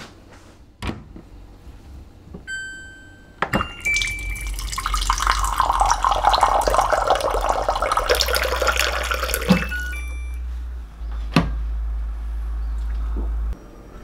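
Countertop water purifier dispensing water into a glass mug: a short electronic beep, then a stream of water filling the glass for about six seconds, and another beep as it stops. A low steady hum runs under the pour and cuts off suddenly near the end.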